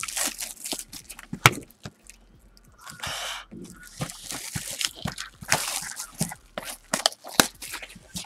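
A trading card box and its foil packs being handled and torn open: irregular crinkling, crackling and tearing of wrapper and cardboard, with a longer rasping tear about three seconds in.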